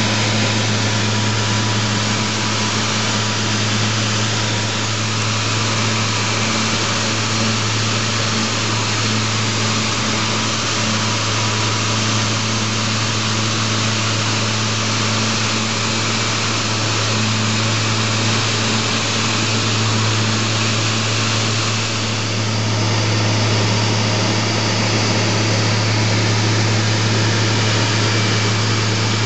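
Steady drone of a sightseeing aircraft's engine in flight: a constant low hum over a broad hiss, growing slightly stronger a few seconds before the end.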